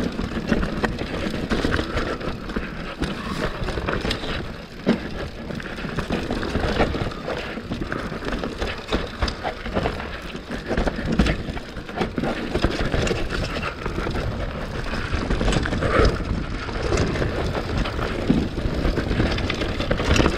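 Mountain bike riding fast down a rough dirt and rock singletrack: tyres crunching over stones and roots, with the bike rattling and knocking over the bumps and wind rumbling on the microphone.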